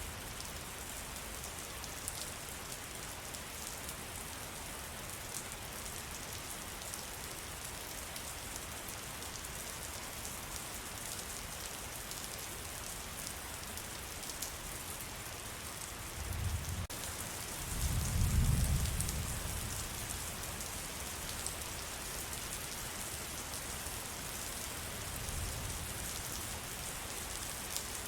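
Steady rain falling in a forest, a constant patter of drops. About two-thirds of the way through, a low rumble swells and fades over a few seconds, and a fainter one follows near the end.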